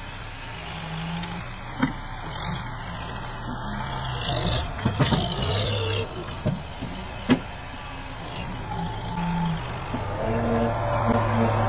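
Kubota tractor with a front-end loader running as it drives along a rough dirt track, its diesel engine a steady low hum, with a few sharp clanks about 2, 5 and 7 seconds in.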